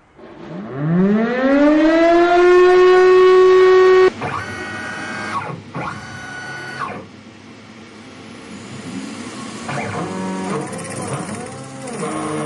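Stepper motor whining: the pitch rises as the motor speeds up, holds steady for about two seconds, and cuts off sharply about four seconds in. After that come quieter, shifting tones and short rising and falling glides as the motor steps at changing speeds.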